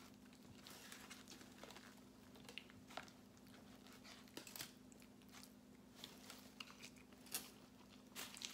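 Faint eating sounds: chewing and mouth noises with scattered light clicks and scrapes of a plastic fork in a foam takeout container, over a steady low hum.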